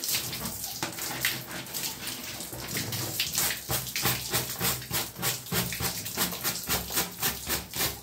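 Plastic brush scrubbing a wet nylon-mesh window AC air filter fast and hard under running water: a rapid, steady rhythm of scratchy strokes, about three or four a second.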